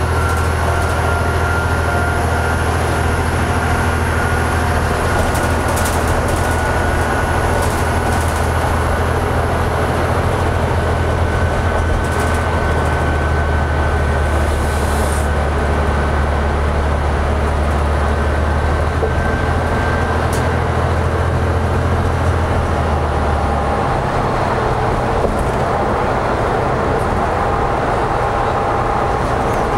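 Cabin sound of a 2004 New Flyer DE60LF hybrid articulated bus under way: the steady drone of its Caterpillar C-9 diesel with road noise, and a thin high whine from the drivetrain rising slowly in pitch. The deep drone drops away about two-thirds through.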